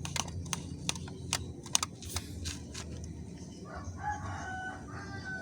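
A series of sharp clicks and taps, then a rooster crowing once, starting about four seconds in.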